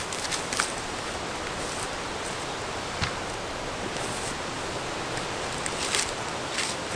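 Light rustling and crackling of birch bark and wood pieces being handled on grass, with a dull knock about three seconds in as a piece is set down, over a steady outdoor hiss.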